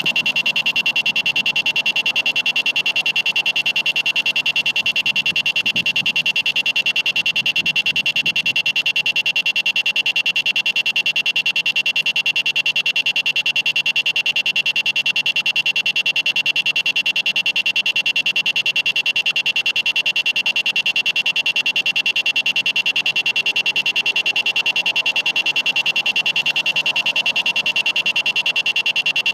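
Malfunctioning electronic doorbell stuck sounding: a continuous high-pitched electronic tone that pulses rapidly and evenly without stopping.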